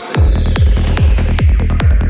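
Fast electronic dance music in a trance style: a steady kick drum at about two and a half beats a second over a rolling bass line. The bass drops out for a moment at the start, and a swelling noise sweep rides over the first second.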